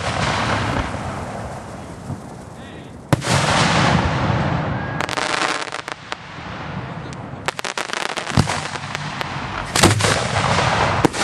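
Aerial fireworks shells bursting overhead: a loud bang about three seconds in and another near the end, with a rapid run of sharp cracks around eight seconds in and a steady hiss between the bursts.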